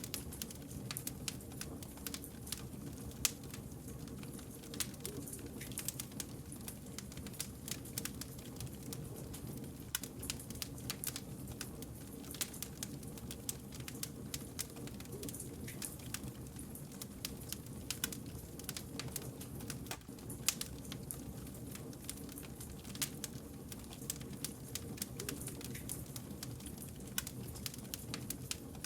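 Wood fire crackling: many small irregular pops and snaps, a few louder than the rest, over a low steady rumble of burning logs.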